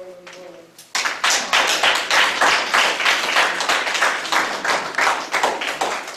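A group of people clapping, starting suddenly about a second in.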